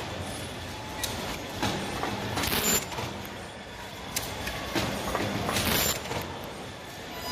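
Automatic surgical face-mask making machine running: steady mechanical clatter with scattered clicks and two short hissing bursts, about two and a half seconds in and again about three seconds later.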